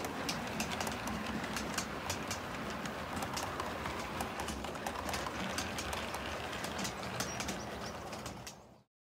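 Model train of coaches rolling along layout track: a steady rumble with rapid irregular clicks of wheels over the rail joints. The sound cuts off suddenly near the end.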